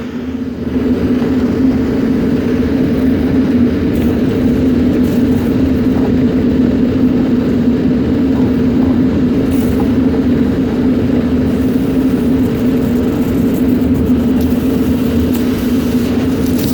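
Duct-cleaning power vacuum running steadily at full power, a loud even drone with a strong low hum.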